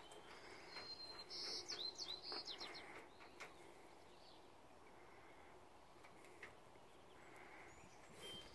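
Faint bird chirping: a quick run of short, high, falling notes between about one and three seconds in.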